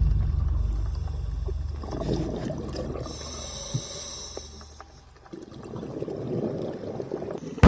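Scuba diver breathing through a regulator underwater. A low bubbling rumble from an exhale fades out, a hissing inhale comes about three seconds in, and more bubbling follows near the end.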